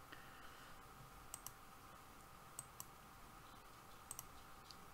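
Near silence with a faint steady hum and three pairs of short, light clicks about a second and a half apart.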